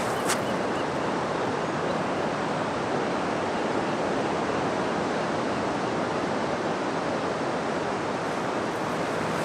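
Steady rushing of ocean surf mixed with wind noise.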